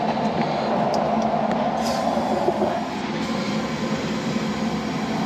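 Nitrogen blowing RX11 flush through an old R22 refrigerant line set: a steady rushing hiss of gas through the copper lines, changing in tone about three seconds in.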